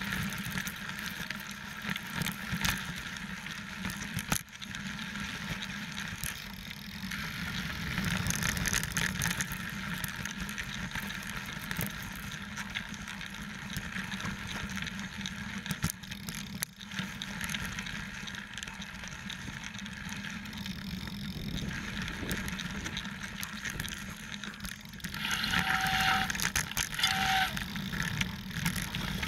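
A 29er mountain bike riding a dirt singletrack: steady rumble of wind and tyres on dirt, with occasional knocks from the bike over bumps. It gets louder near the end, with two short squeaks.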